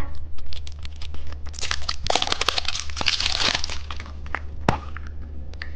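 Plastic candy wrapper crinkling and tearing as it is opened, densest from about one and a half to four seconds in, with a few single sharp crackles after.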